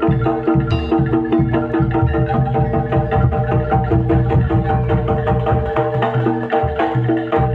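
Jaranan dor music: a Javanese gamelan-style ensemble playing, with tuned bronze gong-chimes ringing a fast repeating pattern over steady, regular drum beats.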